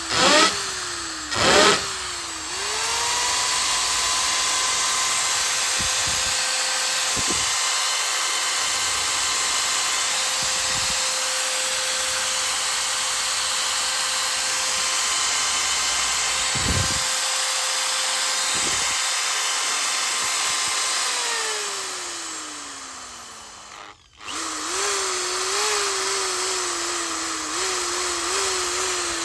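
INGCO 750 W impact drill: a few quick trigger blips, then run up to full speed and held steady for about twenty seconds. It then winds down with falling pitch and starts again near the end at a lower, wavering speed.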